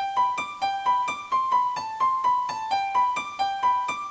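Background music: a keyboard playing a steady run of single high notes, about four a second.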